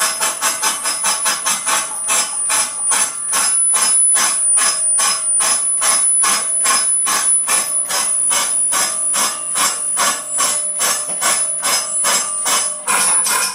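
Live experimental electronic noise music: a fast, even pulse of harsh noisy beats, about three a second, under a steady high-pitched whine.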